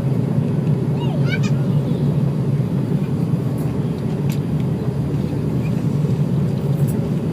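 Steady low rumble of an Airbus A340-300's four engines and airflow heard inside the passenger cabin. A brief high squeak cuts in about a second in.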